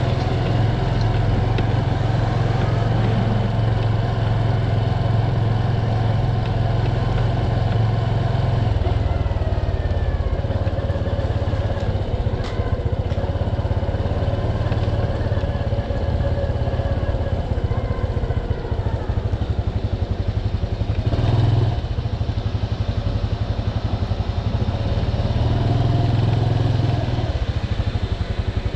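Motorcycle engine running at low speed, its pitch rising and falling with the throttle, with a brief louder surge about three quarters of the way through.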